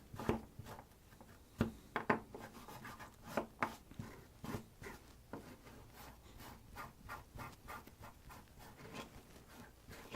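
Hand scrubbing of the saw handle's metal hardware with an abrasive, in quick, uneven scratching strokes, rubbing off old wood residue and surface rust.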